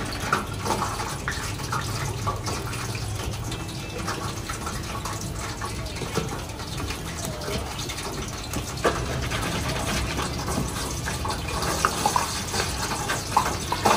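Battered chicken pieces deep-frying in hot oil in a wire fryer basket: a steady sizzle and bubbling, with scattered sharp crackles and pops.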